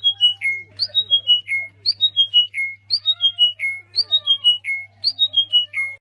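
A bird repeating a short whistled phrase about once a second: a quick rising note, then three or four notes stepping down in pitch. Fainter gliding calls sound underneath, over a steady low hum, and it all cuts off suddenly at the end.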